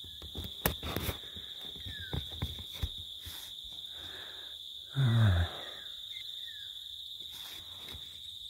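Crickets chirring in a steady high chorus, with a few faint clicks. About five seconds in, a man lets out a short sigh that falls in pitch.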